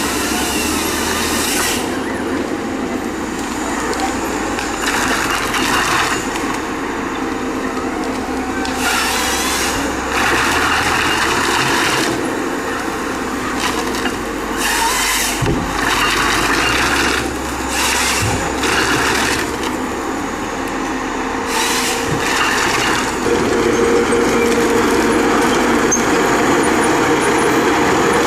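Heavy forestry machine cutting wood: a steady engine running, with bursts of louder sawing or grinding noise every few seconds.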